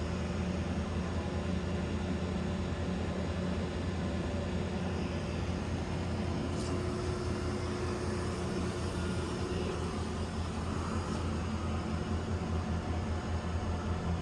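Mori Seiki MS-2000G engine lathe running under power, its spindle motor and headstock gearing giving a steady low hum.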